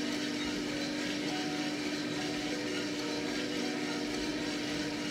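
Gas-fired 1 kg Mill City drum coffee roaster running, a steady hum over an even hiss, with the roast nearing first crack.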